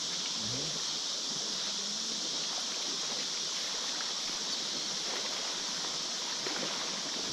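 Shallow river water running steadily over a gravel riffle, an even, unbroken hiss.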